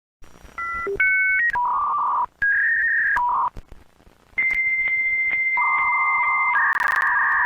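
A string of electronic beep tones that jump between pitches, several of them two tones at once like telephone keypad tones, with short gaps. About four seconds in, one long steady beep starts and changes to a lower two-tone sound that holds to the end.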